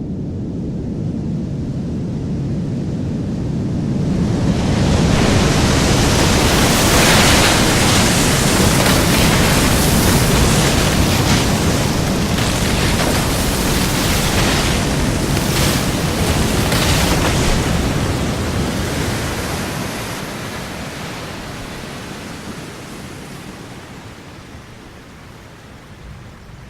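Designed tsunami sound effect set in a forest: a low rumble builds over the first few seconds into a loud rush of crashing water, with sharp cracks in the middle from trees collapsing, then slowly fades.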